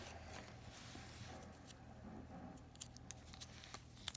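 Faint handling of a card binder: plastic card-sleeve pages rustling softly, with a few small clicks, the sharpest near the end.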